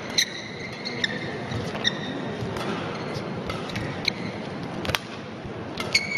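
Badminton rally: sharp racket hits on the shuttlecock, several times, with short shoe squeaks on the court mat, over a low steady murmur from the hall.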